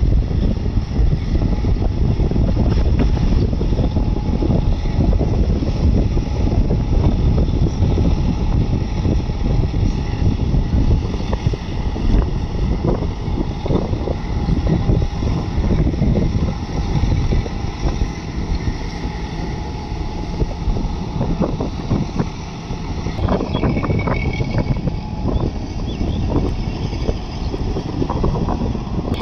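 Wind buffeting the microphone in a loud, uneven low rumble, over the steady drone of a John Deere tractor's diesel engine working in a flooded field.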